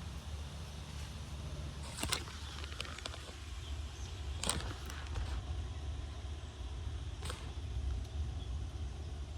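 Strong wind buffeting the microphone: a steady low rumble, broken by three brief sharp noises about two, four and a half and seven seconds in.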